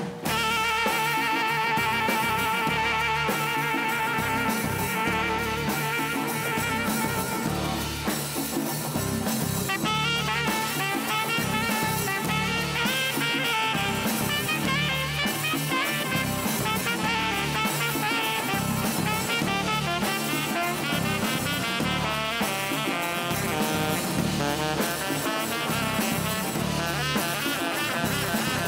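Live instrumental band with saxophone, electric bass, keyboard and drum kit playing together; the whole band comes in at once at the start. Long held notes give way at about ten seconds to busier, faster lines.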